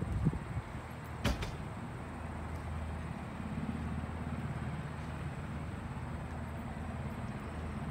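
Distant light aircraft's piston engine running steadily with a low drone as the plane taxis. A single sharp knock sounds about a second in.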